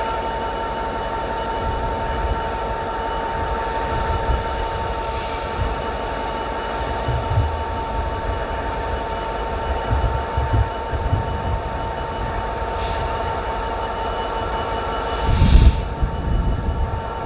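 Freight train rolling past with a steady rumble and a constant high tone, broken by irregular low knocks and clunks from the wagons. A heavier thump comes near the end.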